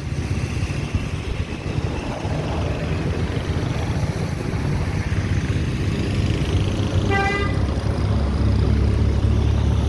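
Road traffic rumbling by, with a short vehicle horn toot about seven seconds in; the engine rumble grows louder near the end as a vehicle comes close.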